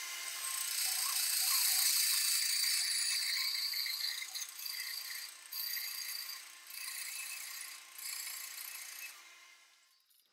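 Bandsaw ripping through a block of split beech firewood: a steady hum under the hissing rasp of the blade in the wood. The cut dips in loudness several times in the second half and fades out near the end.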